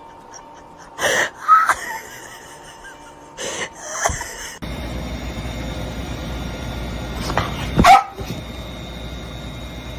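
A cat wedged between pipes gives two short cries about a second in, then a hiss. After a cut there is a steady background hiss, and a dog barks once, sharply, about eight seconds in.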